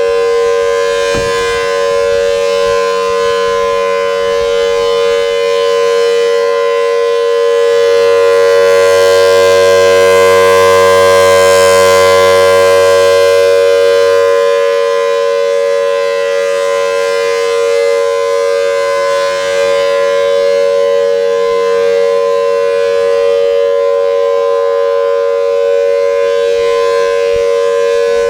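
Federal Signal Thunderbolt tornado warning siren sounding a steady tone during a test, its pitch holding level. The sound swells louder for several seconds in the middle and then eases back as the rotating siren head turns toward the microphone and away.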